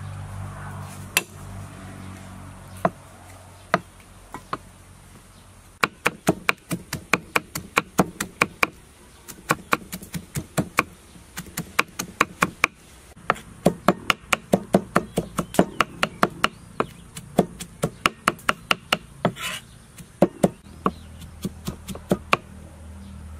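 A cleaver chopping garlic cloves on a thick wooden chopping block. A few scattered knocks come first, then rapid, steady strikes at about four or five a second from about six seconds in, stopping shortly before the end.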